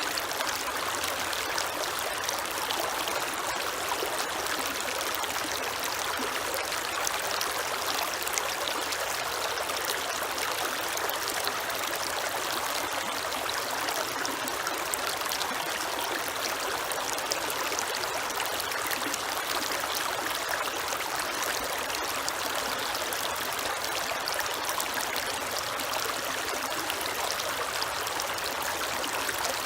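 Creek water flowing and trickling over stones, a steady splashing rush.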